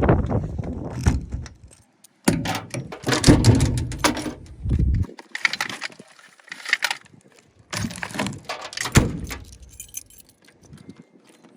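Metal exhaust parts being handled and unpacked: an irregular series of clinks, rattles and clatters, with rustling, in bunches of a second or two and gaps between.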